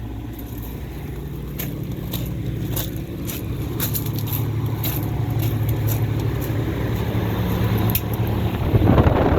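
Outdoor air-conditioning condensing unit running: a steady low hum of the compressor and fan that grows louder, with scattered clicks and a loud rushing burst near the end.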